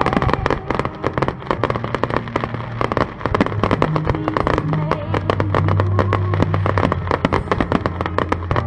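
Fireworks finale: a dense, rapid barrage of shells bursting and crackling, many reports every second with no break. Steady music plays underneath.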